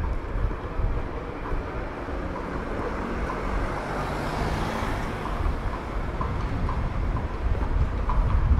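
A car drives up and passes close by, its tyre and engine noise swelling to a peak about halfway through and then fading. A horse-drawn carriage's hooves clip-clop faintly on the street, becoming clearer near the end.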